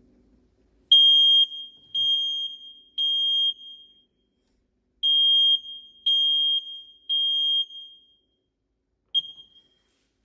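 Smoke alarm sounding its high-pitched beeping alarm in the temporal-three pattern: three half-second beeps about a second apart, a pause, three more beeps, then one short cut-off beep near the end. This is the alarm being set off for a test.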